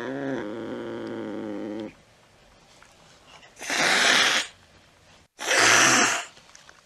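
A cat's drawn-out, wavering yowl tails off about two seconds in, followed by two sharp hisses, each under a second, that are louder than the yowl.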